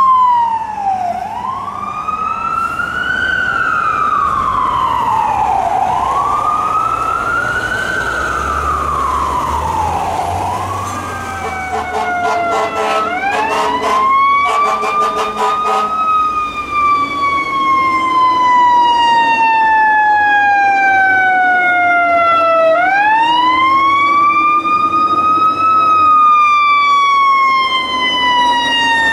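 FDNY ambulance siren wailing, rising and falling about every two and a half seconds. Then Philadelphia Fire Department Rescue 1's siren takes over: it rises quickly and winds down slowly over about six seconds, twice, with a quick series of clicks, about four a second, as it starts.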